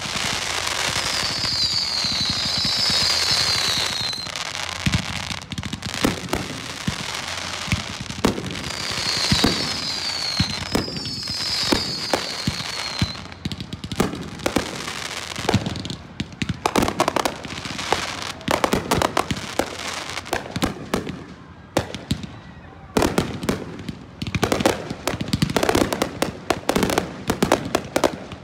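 Fireworks display: a dense, continuous run of launches and bursts with crackling. There are clusters of short falling whistles in the first half and a rapid string of sharp pops and reports in the second half.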